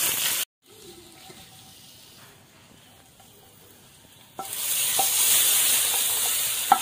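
Mustard seeds, curry leaves and chillies sizzling in hot oil for a tempering. It breaks off briefly, then the sizzle comes back loud about four and a half seconds in as the hot tempering is poured into the curry and stirred, with a few sharp clicks of spoon and pan.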